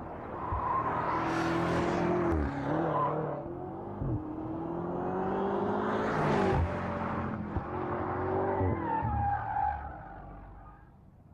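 2018 BMW M5 F90's twin-turbo V8 accelerating hard through the gears, its revs climbing and dropping back at each upshift, several times over. The sound fades away near the end.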